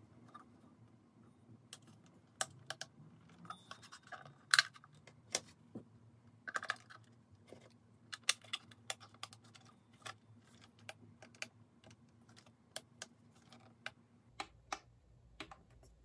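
Irregular sharp plastic clicks and taps from handling a battery-powered twin-bell alarm clock, its back case and battery compartment cover being worked by hand.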